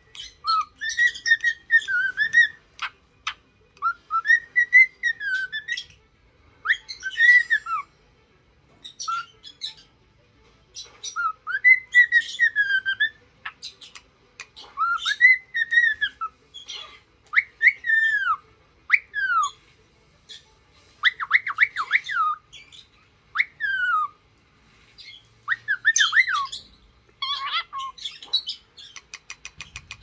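Cockatiel singing: a run of short whistled phrases that swoop up and down, separated by brief pauses, with scratchy chatter between the whistles.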